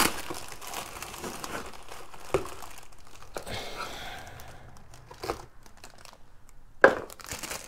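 Plastic packaging crinkling as it is handled: a clear plastic bag and bubble wrap rustling, with a few sharp crackles, the loudest shortly before the end.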